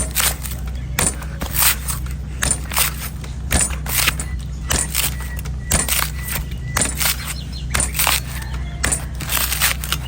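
Sharp knife chopping and slicing into the dry, hard husk of an old coconut, in quick, uneven strokes about two a second, over a steady low hum.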